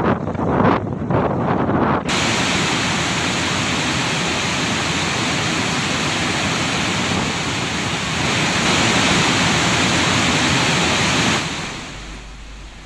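Floodwater rushing out through open dam spillway gates: a loud, steady wash of water noise, rougher and deeper for the first two seconds, then a full hiss, fading away near the end.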